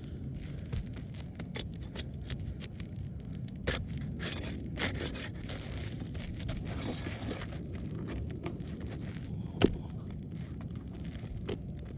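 Steel flat bar scraping and prying under asphalt shingles, breaking their adhesive seal, with scattered crackles and clicks and one sharp knock about ten seconds in.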